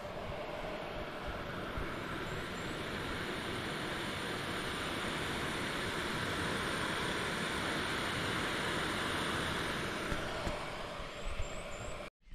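Backpacking canister stove burner running, a steady rushing hiss that eases off slightly near the end.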